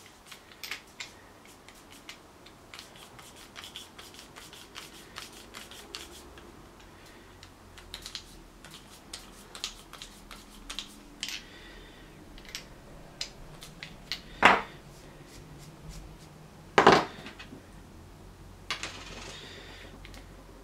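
Small metal parts and tools clicking and clinking as a pedal bearing is worked onto the spindle of a Look Keo pedal, with two much louder knocks a couple of seconds apart about two-thirds of the way through.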